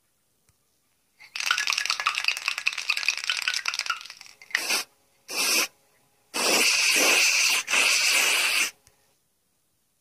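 Aerosol spray-paint can: about three seconds of rattling, as when the can is shaken, then two short sprays and two longer hissing sprays, the last ending a little over a second before the end.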